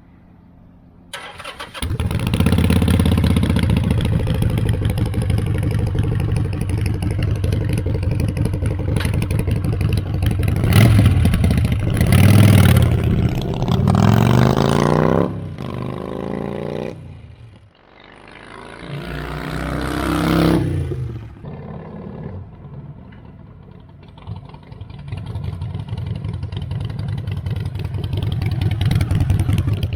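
Harley-Davidson Sportster V-twin through a Vance & Hines Big Radius 2-into-2 exhaust. It starts up about two seconds in, idles, and is revved several times in the middle. Near the end it builds steadily as the bike pulls away.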